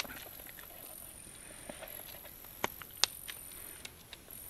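A titanium spork clicking and scraping in a foil food pouch while eating, with the soft crinkle of the pouch. There are a few sharp separate clicks, the loudest about three seconds in.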